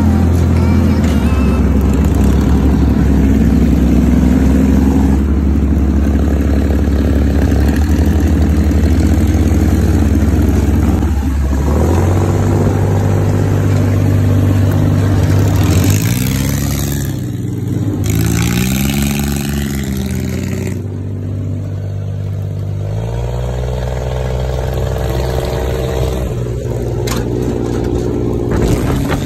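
Off-road dune buggy's engine running under way on a rough dirt road, heard from the seat. The engine note rises and falls several times in the second half as the buggy speeds up and eases off.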